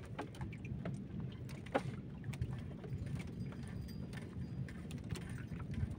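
Steady low wash of water around a small wooden boat at sea, with scattered light clicks and knocks from fishing gear being handled in the boat.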